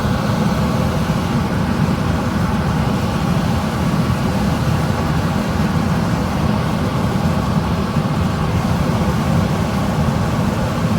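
Gas furnace's indoor blower running, a steady low rumble with a faint hum. The unit cuts in and out because of a loose terminal on its control board.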